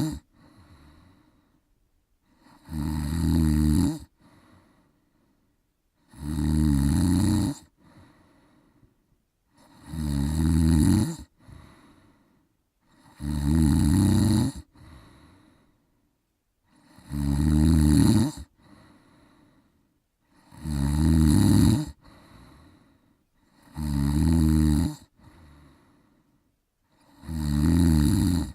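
Steady snoring: eight long, loud snores about every three and a half seconds, each followed by a short, softer breath.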